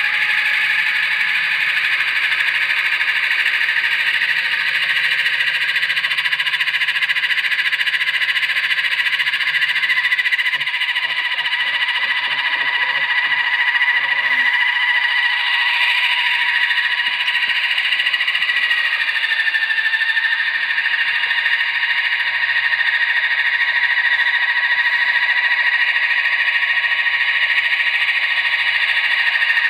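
Blade Nano S3 micro RC helicopter hovering: a steady high whine from its electric motor and spinning rotors, the pitch wavering a little and dipping slightly about two-thirds of the way through.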